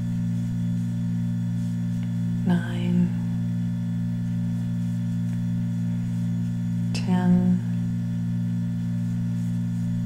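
Steady low electrical hum, with a voice saying two short words, about two and a half and seven seconds in.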